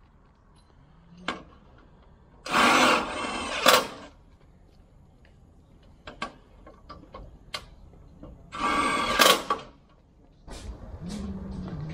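Cordless drill whirring in two short bursts, about a second each, as it works on a seamless gutter section, with light clicks and taps between. A steady low hum starts near the end.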